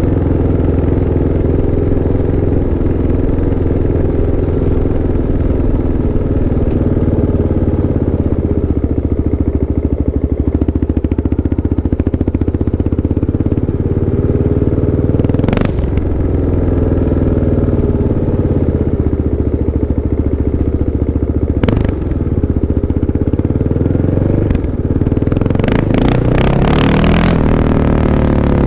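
Kawasaki KLX 650 motorcycle's single-cylinder four-stroke engine running steadily, its pitch drifting up and down. There are two sharp knocks, about halfway and about two-thirds of the way through, and near the end the engine revs up and settles back.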